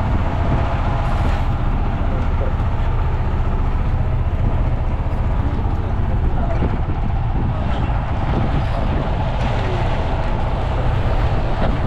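Fishing boat's engine running steadily, a constant low drone with water and wind noise over it.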